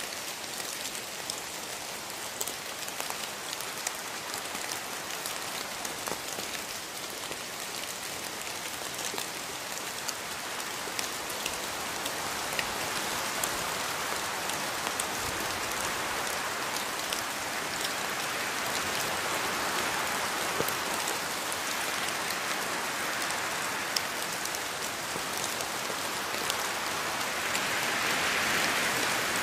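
Steady rainfall in a rainforest, many drops pattering on leaves and surfaces, growing gradually louder towards the end.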